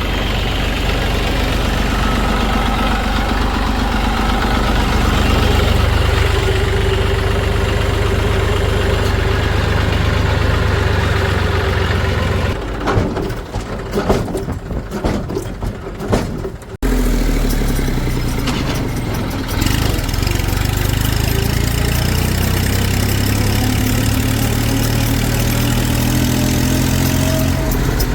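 Vehicle engine running steadily. In the middle it gives way for a few seconds to irregular clicking and knocking, then cuts abruptly to another steady engine sound.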